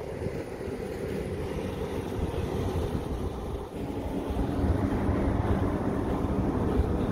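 Wind buffeting an open microphone, a gusty low rumble. It dips briefly a little under four seconds in, then comes back louder.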